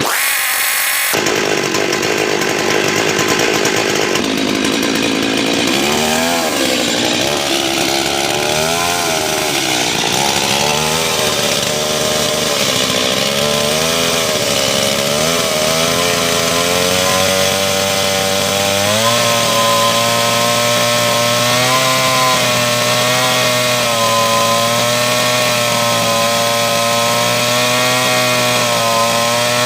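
Stihl MS382 two-stroke chainsaw running under load, cutting wood, its engine pitch repeatedly dipping and recovering as the chain bites.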